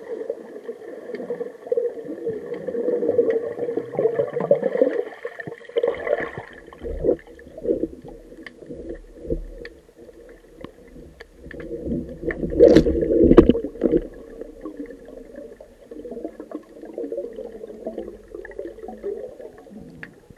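Underwater sound picked up by a diving camera: muffled rushing and gurgling of water with scattered clicks and knocks over a steady hum, with a loud cluster of knocks about two-thirds of the way through.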